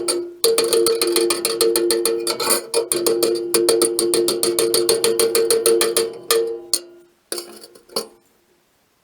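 Steel plate being struck in rapid, repeated blows, ringing with a clear metallic tone as it is worked round into a curve. The fast blows stop near the end, followed by two single strikes.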